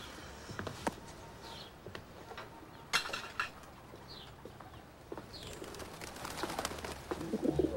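A pigeon cooing among a few short, high bird chirps, with a couple of sharp clinks of dishes being cleared from a table.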